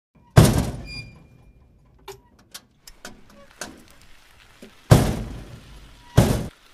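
Gravel sliding out of a small tipping sheet-metal trolley bed: a clank with a brief metallic ring near the start, scattered pebble ticks, then two loud rushes of gravel pouring out about a second and a half apart near the end.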